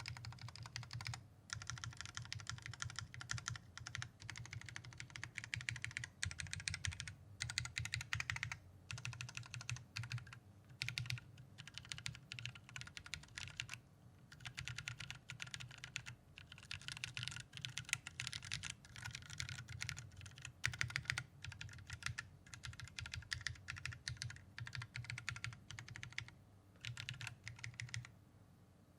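Custom Space65 mechanical keyboard with lubed Holy Panda tactile switches on a carbon fiber plate, its larger stabilized keys on lubed Durock v2 stabilizers pressed rapidly over and over with short pauses, the keyboard sitting on a deskmat.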